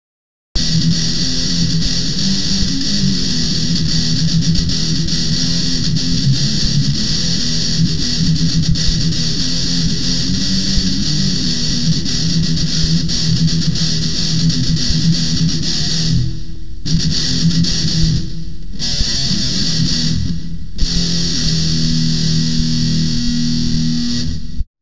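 Heavy metal music: loud distorted electric guitar riffing over a steady beat, stopping dead for short breaks three times in the second half and cutting off near the end.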